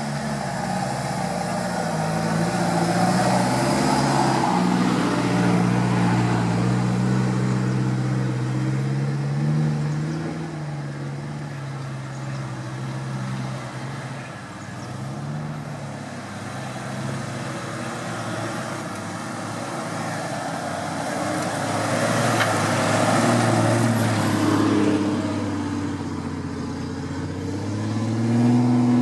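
An off-road 4x4 engine, a Jeep Cherokee XJ, revving under load as it climbs a muddy trail, its pitch rising and falling with throttle. Near the end a second engine takes over, from a Toyota Land Cruiser on the same climb.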